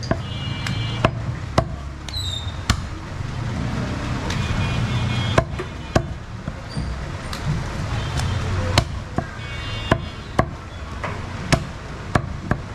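Butcher chopping goat meat by hand: sharp, irregular chops, roughly one every half second to second, over a steady low market rumble.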